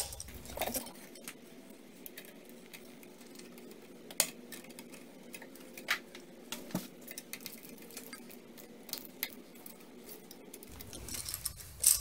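Small metallic clicks and clinks as wires and a light switch are handled while a ground wire is fastened to the switch's grounding screw, with a few sharper clicks, the loudest about four seconds in.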